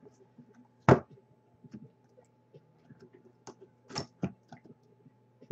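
Sharp knocks and clicks of a small cardboard trading card box and its packs being handled and opened on a desk. One loud knock comes about a second in, then a quick run of three or four clicks later on, with faint small ticks of handling between them.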